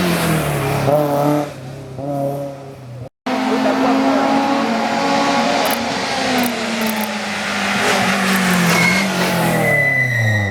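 Small four-cylinder hatchback race car engines at full throttle on a hillclimb, the revs rising and dropping through gear changes. The sound fades about a second and a half in and cuts out briefly about three seconds in. It returns loud with another car pulling hard through its gears.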